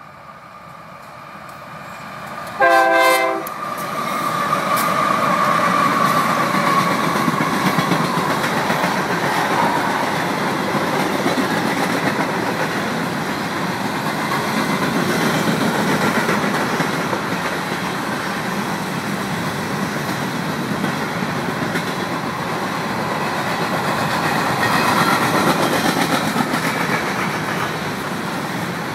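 A diesel locomotive horn gives one short blast about three seconds in, as the locomotives of a Union Pacific grain train come up. The locomotives and a long string of covered hopper cars then roll past close by, with steady wheel-on-rail noise.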